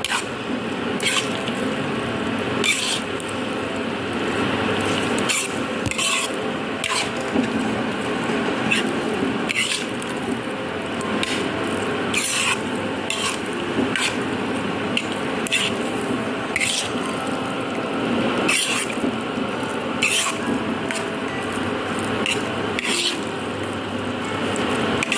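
Close-up wet eating sounds: chewing and squelching food, with sharp clicks every second or so.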